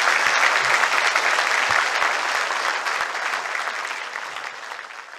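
Audience applauding, the clapping loud at first and dying away toward the end.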